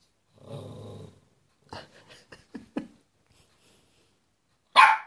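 Lhasa Apso giving a short low growl, then a few short, quieter sounds, then one loud bark near the end.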